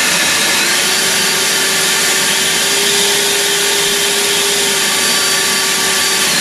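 Hyundai HYB60Li cordless leaf blower with a brushless motor running under the trigger: a steady rush of air with a high whine over it. Near the end the whine steps down in pitch as a speed button is pressed and the blower drops to a lower speed.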